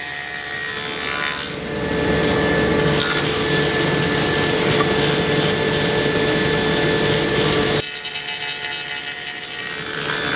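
Table saw fitted with a stacked dado set running with a steady motor hum, cutting a dado across a 2x4. The cut grows louder about a second and a half in and stops about eight seconds in, leaving the blade spinning.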